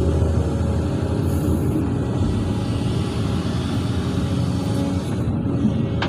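Hydraulic excavator's diesel engine running under load with a steady low rumble as the bucket swings and dumps soil.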